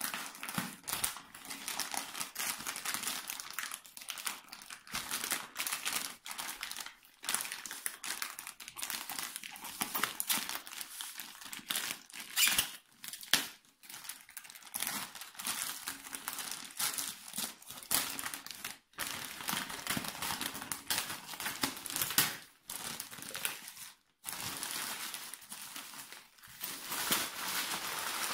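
Plastic mailer bags crinkling and rustling in a dense, irregular run of crackles with brief pauses, as they are cut, torn open and pulled off a parcel by hand.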